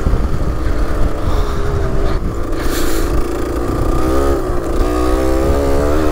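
A 1990 Kawasaki KDX125 two-stroke single-cylinder dirt bike engine running under way. Its pitch drops about two seconds in, then climbs sharply as it is revved about four seconds in and again near the end, with wind rumble on the microphone.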